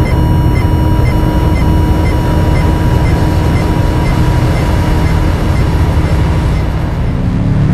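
Designed sci-fi spaceship sound effect: a deep, steady engine rumble under a held electronic tone, with a short beep repeating about twice a second. The tone and beeps cut out near the end while the rumble goes on.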